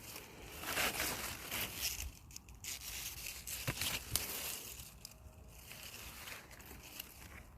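Bursts of rustling, crumpling and tearing handling noise with a few sharp clicks, loudest in the first half and fading toward the end.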